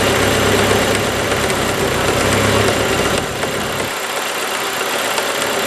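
1997 Mercury Mystique engine idling steadily with the hood open; its low rumble drops away about four seconds in.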